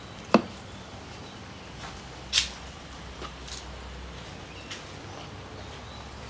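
Oil bottle and funnel being set aside: one sharp knock about a third of a second in, a brief scraping rustle about two seconds later, then a few faint ticks, over a steady low background noise.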